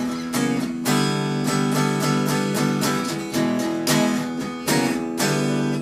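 Fender Jazzmaster HH electric guitar played clean, its bridge humbucker split to single coil, strumming a run of ringing chords.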